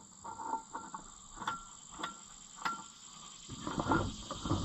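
Three light metallic clinks about half a second apart, with a short scraping shuffle near the end, as wheel bolts and rim parts are handled and fitted by hand. Crickets chirr steadily underneath.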